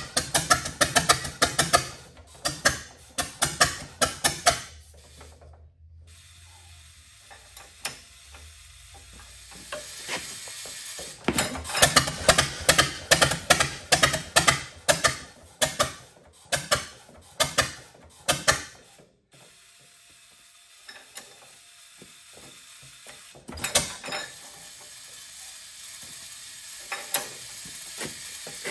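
A 1922 Fordson tractor's four-cylinder engine firing in fast runs of sharp, uneven pops as it tries to catch, dying back twice, with a few lone pops near the end: a long-idle engine running rough and not yet staying lit.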